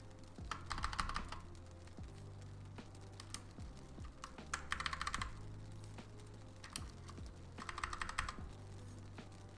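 Typing on an 80% mechanical keyboard, in three short flurries of rapid keystrokes a few seconds apart.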